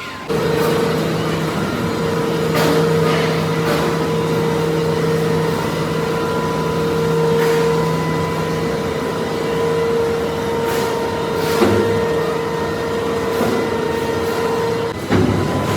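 Heavy steel-mill machinery running with a steady hum and a dense mechanical noise, with a few scattered metallic knocks. The hum cuts off about a second before the end.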